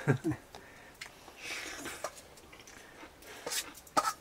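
Eating: soft chewing and mouth sounds, with a few light clicks of a spoon against a metal plate near the end.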